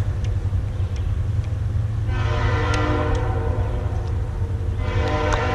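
A long, steady horn blast of several pitches at once begins about two seconds in and keeps sounding, over a steady low rumble.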